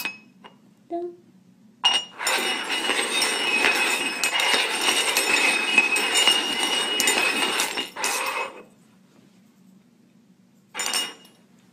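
Stainless steel cups sliding, scraping and clinking on a hard floor as they are shuffled. The rattle is continuous from about two seconds in and stops after about six and a half seconds.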